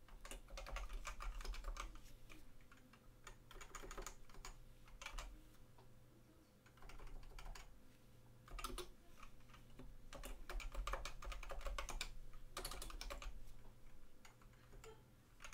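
Computer keyboard typing: faint keystrokes in several short bursts, with brief pauses between them.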